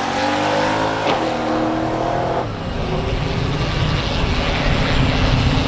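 Drag race car engine under acceleration, its pitch climbing. About a second in there is a sharp crack and the tone steps. After about two and a half seconds it gives way to a low, uneven rumble.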